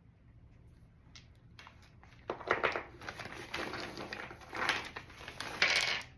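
Packing wrap being crinkled and handled as a rock is unwrapped from the box: a crackly rustle that starts about two seconds in, with three louder crinkling stretches.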